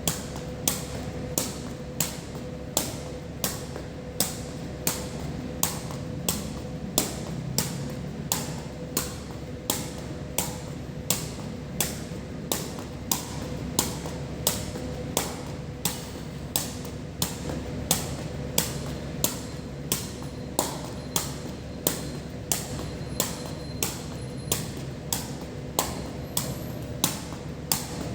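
Water dripping steadily onto a hard surface during rain: sharp, evenly spaced taps about one and a half times a second, over a steady low background noise and a faint hum.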